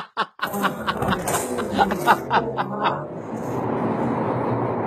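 Laughter sound effect, a run of quick giggling pulses over music, for about three seconds. Then the steady rumble of a London Underground train running, heard from inside the carriage.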